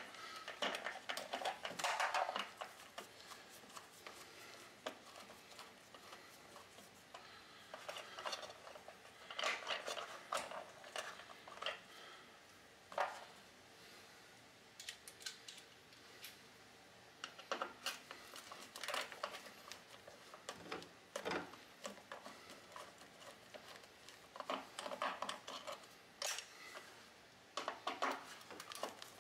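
Screwdriver work and wire handling at an electric water heater's top wiring box: irregular clusters of small metal clicks, taps and scrapes as the screwdriver meets screws and sheet metal and the stiff wires are moved.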